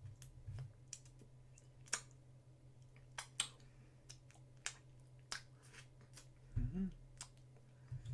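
Scattered short, sharp wet clicks of lip smacking and finger licking, the fingers sticky with peanut butter, jelly and maple syrup, with a brief low hum from the eater about two-thirds of the way in. A faint steady low hum sits underneath.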